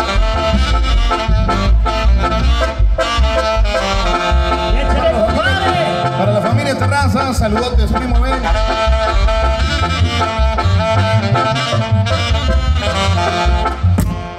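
A tamborazo band playing live dance music: a heavy, steady bass-drum beat under wind-instrument melody lines. The music drops away right at the end.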